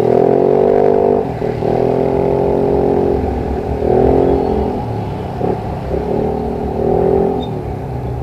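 Yamaha NMAX 155 scooter's single-cylinder engine through an Akrapovič full exhaust, its note rising and falling with the throttle several times.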